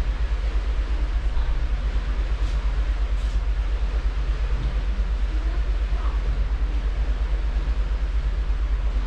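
Steady low rumble of wind buffeting an action camera's microphone, over the even hiss of a cruise ship's churning wake water.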